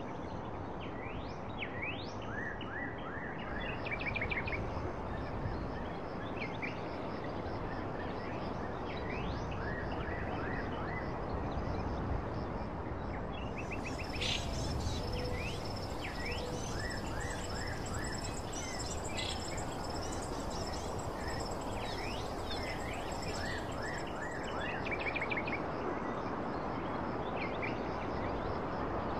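Birds chirping in short, repeated calls over a steady background hiss. For about ten seconds in the middle, a high, steady, pulsing trill joins in.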